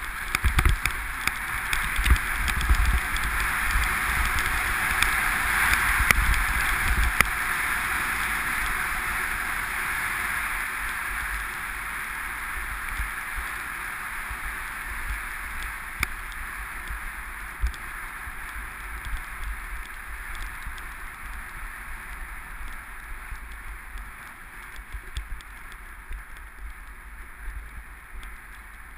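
Skis running over packed snow with a steady hiss, and wind buffeting the microphone with low thumps through the first several seconds. The hiss grows gradually quieter over the second half.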